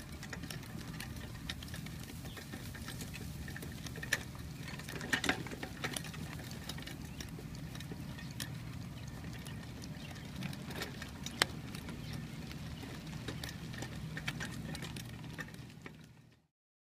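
A dog-drawn sulky rolling over dry grass and dirt: a steady low rumble from the rig, with scattered light clicks and pattering. It fades out near the end.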